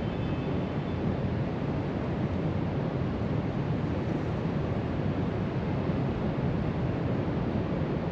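Steady wash of surf breaking along the shoreline, mixed with wind across the microphone, heard from a height as one even, low rushing noise.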